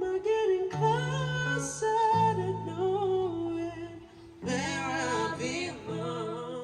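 Background music: a sung melody over guitar and a steady bass line.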